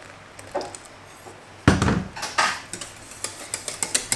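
A loud thump a little under halfway in, then a wire whisk clicking and scraping quickly against a stainless-steel saucepan as a thickened stock sauce is whisked.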